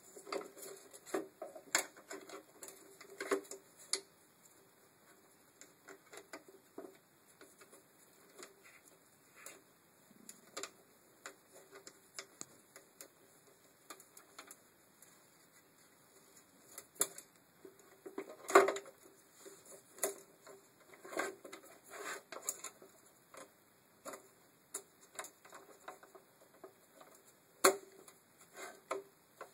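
Irregular clicks, taps and light knocks of plastic and metal parts being handled: the cable-operated window regulator rails, cables and slider on a VW Passat B5 door carrier plate being fitted by hand. The sharpest knocks come about two-thirds of the way through and again near the end.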